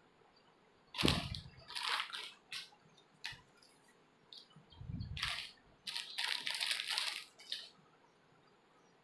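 Cloth garments rustling as they are handled and laid out close to the microphone, in several short bursts, with a soft thump about a second in and another about five seconds in.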